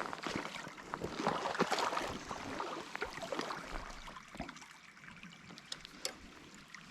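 Shallow trout-stream water splashing and sloshing with many small knocks, as of someone wading, for the first three and a half seconds. Then it settles to the quieter, steady sound of the stream, with one sharp click about six seconds in.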